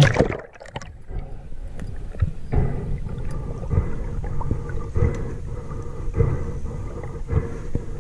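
A splash as the camera goes under the surface of a murky river, then muffled underwater noise: low rumbling water movement with a dull knock every second or so.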